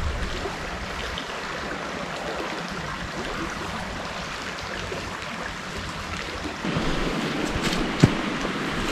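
East Verde River running steadily over its bed. Near the end, rustling and a single sharp thump as the camera is picked up and handled.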